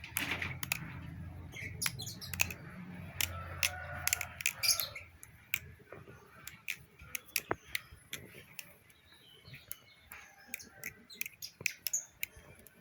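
Balisong (butterfly knife) clone being flipped: an irregular string of sharp clicks and clacks as the handles swing around the pivots and meet. The clicks are dense for the first five seconds and sparser after. The flips sound clean, with no rattle and no blade tap, a sign that the pivots are still tight after a year's use.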